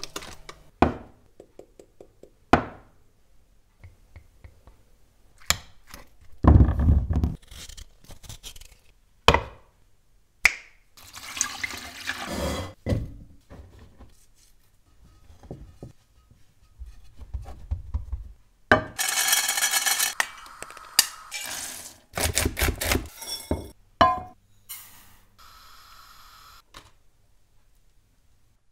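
Kitchen food-preparation sounds in quick succession: a string of sharp knocks and taps, between longer noisy stretches of a second or two, of pouring, scraping or mixing.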